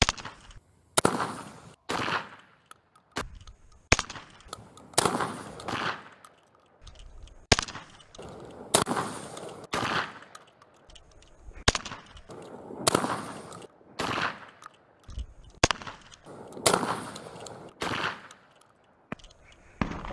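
Derya MK12 semi-automatic 12-gauge shotgun fired shot after shot, roughly one a second, each shot a sharp crack with a short echo.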